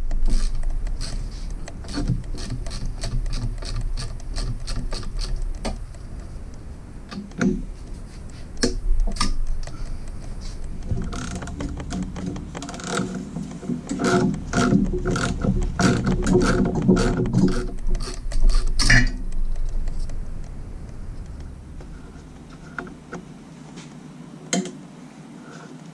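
Hand socket ratchet clicking in quick runs as the nuts are backed off the main bearing cap brace of a Jeep 4.0 inline-six. The clicking stops about three-quarters of the way through, and there is a single knock near the end.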